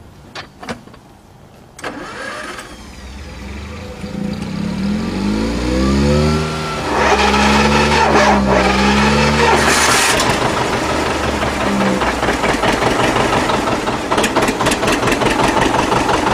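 1959 John Deere 730's two-cylinder diesel being started: it spins up over several seconds with a rising, wavering tone, then catches and runs with a fast, even popping beat.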